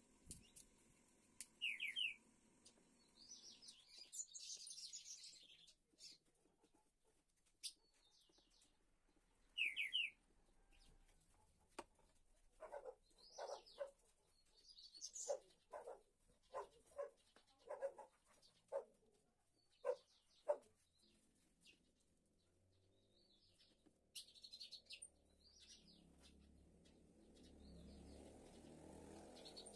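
Faint bird chirps in short bursts, with a string of short sounds about one a second in the middle. Near the end there is a soft low rustle of wooden pieces being handled on a workbench.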